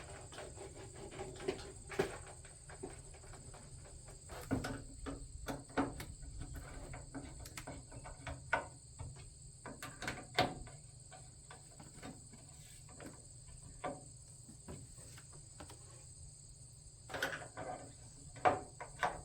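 Crickets chirring steadily in the background, with scattered light clicks and knocks of screws and metal smoker parts being handled as the legs are screwed on by hand.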